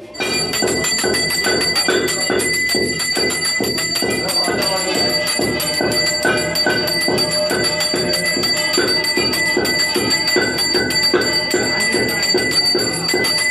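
Puja bell ringing rapidly and without a break during the incense and lamp offering. It rings with steady metallic tones and starts abruptly.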